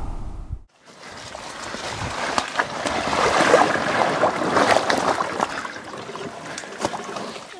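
Mountain bike tyres rolling through mud and puddles, a wet splashing noise with many small clicks and rattles from the bike, starting about a second in and loudest in the middle.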